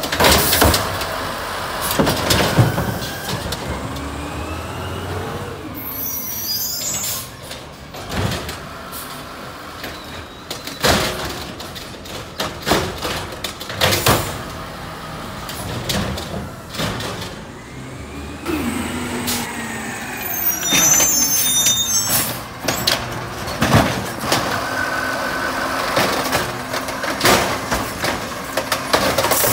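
Automated side-loader garbage truck at work: the engine rising in pitch as the hydraulic arm lifts and empties wheeled trash carts, with repeated bangs of carts and lids. Air brakes squeal and hiss twice as the truck stops and moves between pickups.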